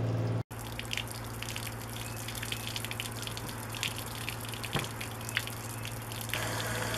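Water gushing from a camping trailer's drain outlet and splashing onto the ground, with scattered drips and splatters, as pink RV antifreeze is flushed out of the fresh water lines. For the first half second a faucet runs into a stainless sink over the low hum of the trailer's water pump, cut off abruptly.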